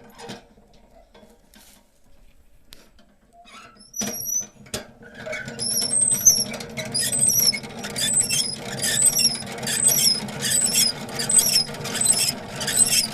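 Honey extractor with comb frames being spun up: after a click it starts turning, the drum running with a low steady rumble and a squeal that repeats somewhat under twice a second with each turn.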